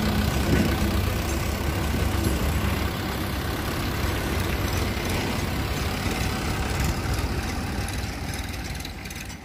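Sonalika DI 750 tractor's diesel engine running steadily as it pulls a trolley loaded with soil. The sound fades somewhat near the end as the tractor moves off.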